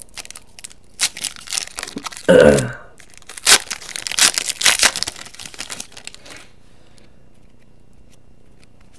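Trading-card pack wrapper being torn open and crinkled: a run of sharp rips and crackles that stops about six and a half seconds in.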